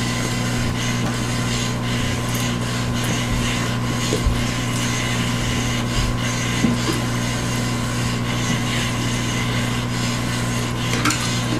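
Small electric motor of a motorized cat wand toy whirring steadily as it swings its wand, with a few light knocks as kittens bat at it.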